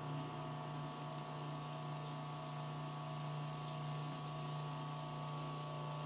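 KitchenAid food processor motor running with a steady hum, mixing flour as olive oil is streamed in through the feed tube for a pastry crust.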